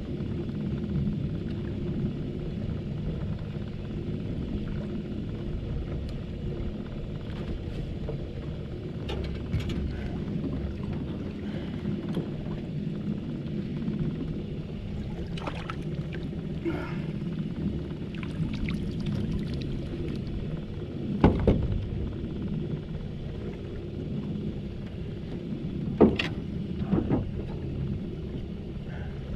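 Steady low rumble and hum aboard a small aluminum fishing boat, broken by a few sharp knocks, the loudest about two-thirds of the way through and again near the end.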